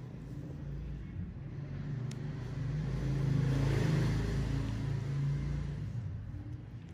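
A motor's low rumble that builds to its loudest about halfway through and then fades away.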